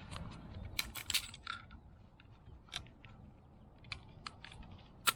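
Small metal and plastic parts of a fuel pump assembly clicking and tapping at irregular moments as springs are fitted back into it, with one sharper click near the end.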